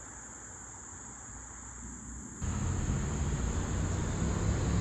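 Steady high-pitched drone of insects in the summer vegetation, with a low rumble that cuts in abruptly about halfway through and makes it louder.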